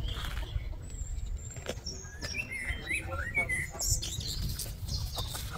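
Wind rumbling on the microphone, with a few faint, short bird chirps about two to four seconds in.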